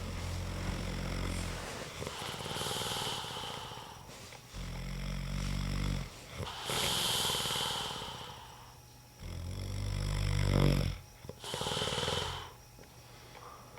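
A man snoring loudly in his sleep: three low, buzzing snores about four and a half seconds apart, each followed by a hissing breath.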